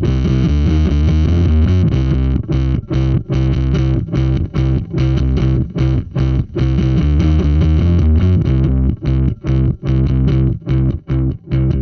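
Electric bass guitar playing a riff through the Buzz Sound Bazooka Joe preamp and distortion pedal, a version of the Tapco/Intersound IVP, giving a thick, distorted tone. The notes are broken by short gaps, and in the last few seconds they turn short and choppy.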